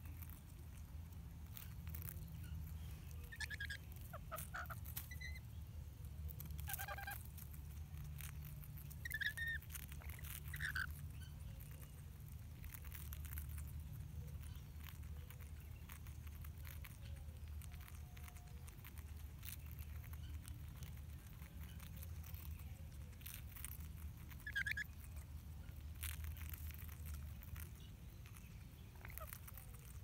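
Rainbow lorikeets feeding, giving a few short chirps now and then amid light pecking clicks, over a low steady rumble.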